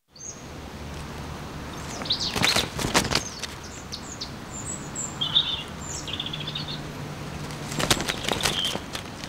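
A hen flapping its wings in two bursts, about two and a half seconds in and again near the end, with short high bird chirps in between.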